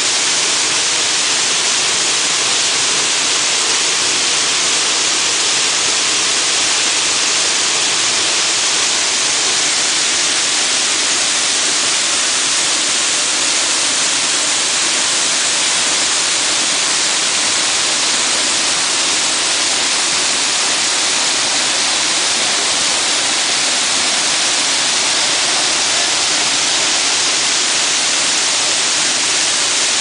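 Waterfall pouring over rock into a plunge pool: a steady, loud rush of falling water that never lets up.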